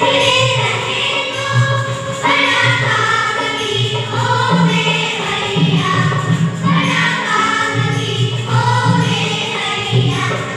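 Children's choir singing together into microphones in phrases a second or two long, over low held instrumental notes.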